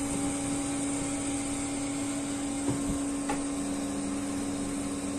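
Fan-assisted electric oven running with a steady hum, with a couple of brief knocks and clicks about three seconds in.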